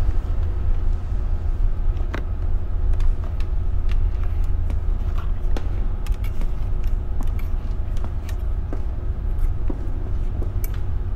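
A steady low rumble, with many small clicks and ticks from shoelaces being pulled through the eyelets of a canvas high-top sneaker and drawn tight.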